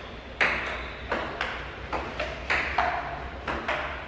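Table tennis rally: the plastic ball clicking sharply off the table and the paddles in a steady back-and-forth. The clicks come in quick pairs, each pair under a second apart, some with a short ring.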